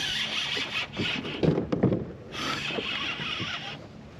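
Fishing reel's drag buzzing as a hooked fish pulls out line, in two spells, with a cluster of loud knocks and thumps against the kayak between them.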